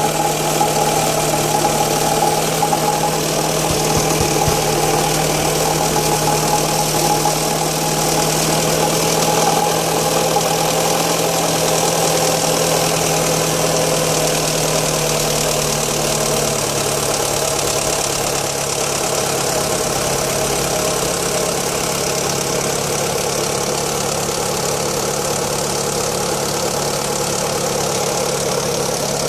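Fiat Stilo 1.8 petrol four-cylinder engine idling steadily after a cold start, with the strange noise its owner asks about running through the idle. Its low steady note drops slightly about seventeen seconds in.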